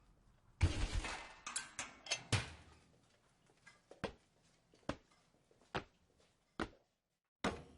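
A quick run of clattering knocks, then single sharp clicks at an even pace, a little under one a second.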